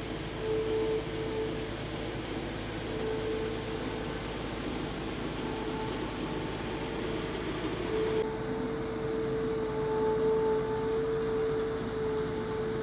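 A road sweeper truck running with its rotary broom brushing the road: a steady rushing mechanical noise with a high whine that comes and goes. About eight seconds in the sound changes abruptly to a different steady hum, with the whine now held.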